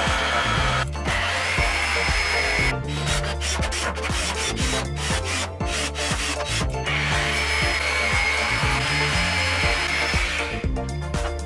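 A tool working wood, rubbing or cutting, in spells with a faint high whine, over background music with a steady beat.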